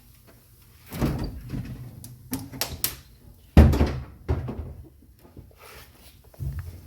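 Dry ice and alcohol slush being scooped off a car's sheet-metal floorpan: a string of knocks and scrapes, the loudest a heavy thump about three and a half seconds in.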